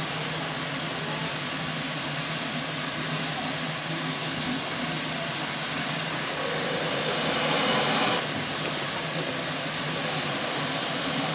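Shay geared steam locomotive standing at rest, hissing steam steadily over a low steady hum. A louder rush of steam starts about six and a half seconds in and cuts off suddenly around eight seconds.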